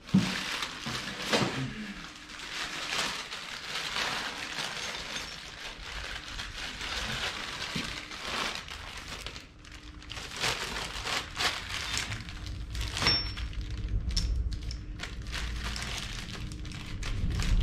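Packing material crinkling and rustling in irregular handfuls as the parts of a new belt grinder are unwrapped from their box, with scattered light knocks.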